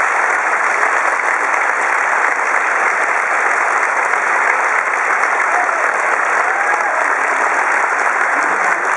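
A large audience applauding steadily, many people clapping at once.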